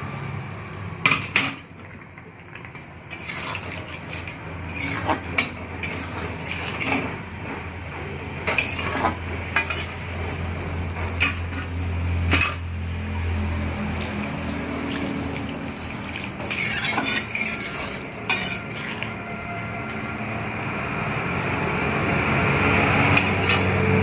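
Metal spoon knocking and scraping against a cooking pan, a string of separate clinks while the curry is stirred, over a steady low hum; a hiss grows louder toward the end.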